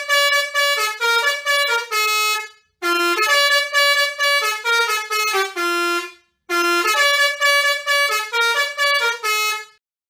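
Bus 'telolet' musical air horn playing a quick multi-note tune, the same short phrase three times with brief pauses between.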